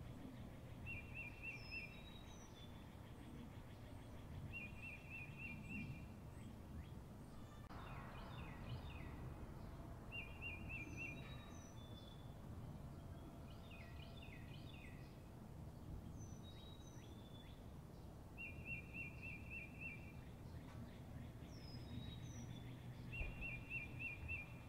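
Faint nature ambience of several birds calling: a short trilled phrase repeating every few seconds, high descending whistles, and two bursts of quick chirps, over a low steady rumble.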